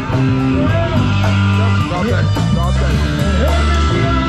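Rock music with guitar and a bass line.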